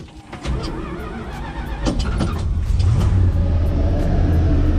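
A 1969 Dodge D200's 318 two-barrel V8 being started after sitting about four months: a couple of seconds of uneven cranking sound, then it catches about halfway through and settles into a steady, louder run.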